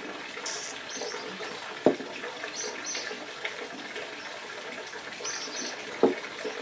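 Rock and root handling: two sharp knocks, one about two seconds in as a porous rock goes down on a terracotta pot, one near the end as the ficus's bare roots are pressed onto the rock. A steady hiss runs beneath.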